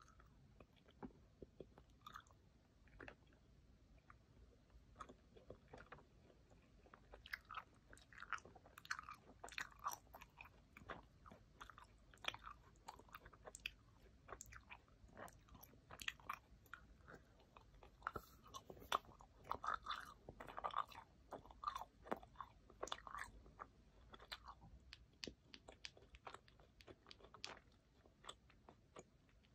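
Quiet close-up chewing of Fini tennis ball bubble gum, with many irregular sharp mouth clicks and bites.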